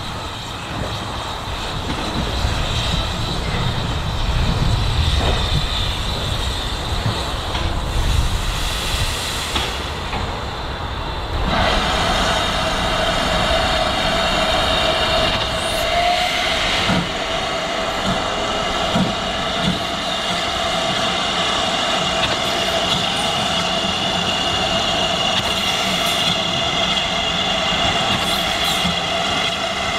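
Heritage train running on the rails: a low rumble of wheels on track. About eleven seconds in it turns brighter, with a steady high-pitched wheel squeal that holds on.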